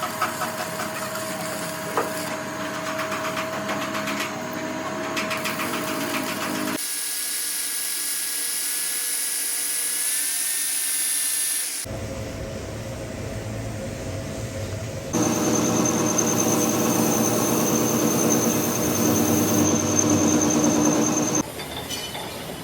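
A run of machining and power-tool sounds on a steel shaft, cut abruptly from one tool to the next every few seconds. One stretch in the middle carries a slowly rising whine.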